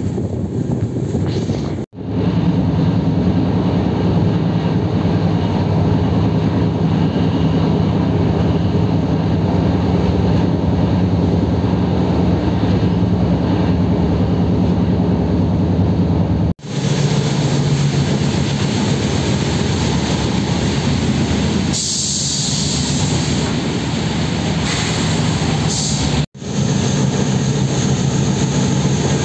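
Express train with LHB coaches running: a steady rumble with a low hum. The sound breaks off abruptly three times where the footage is spliced, and a high hiss joins for a few seconds about two-thirds of the way through.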